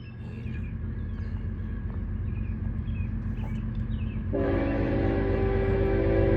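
Approaching train: a low rumble growing steadily louder, then about four seconds in the locomotive's horn starts sounding, a chord of several steady tones held at once.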